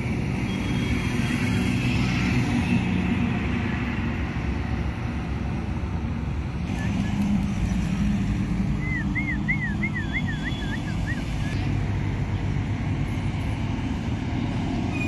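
Heavy trucks' diesel engines running as they pull across the plaza, a steady low rumble. From about nine seconds in, a thin high warbling whistle rises and falls several times for a couple of seconds.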